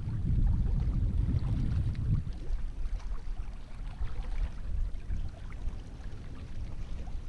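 Wind rumbling on the microphone, strongest in the first two seconds and then easing, over small waves lapping against the rocky shoreline.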